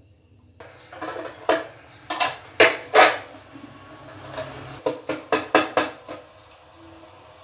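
An aluminium baking tin, upside down on a steel plate, is tapped and knocked by hand to loosen the set date barfi inside. It gives a string of sharp metallic knocks: the loudest come about three seconds in, then a quick run of taps around five to six seconds.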